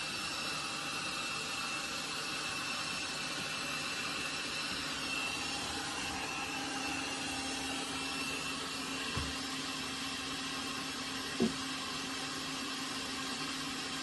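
Laresar robot vacuum running steadily, its suction motor giving an even whirring hum with a faint high whine, and a short knock about eleven seconds in.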